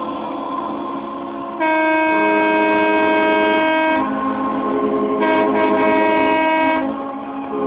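Several boat horns blowing at once in long overlapping blasts, a chord of steady tones that swells louder about a second and a half in and again about five seconds in.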